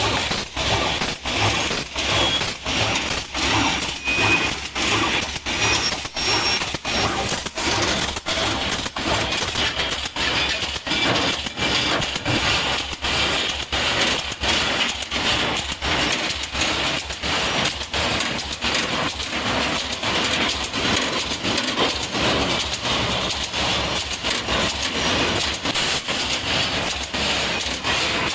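Brick force mesh welding machine running, a steady rhythmic clatter of about three sharp strokes a second.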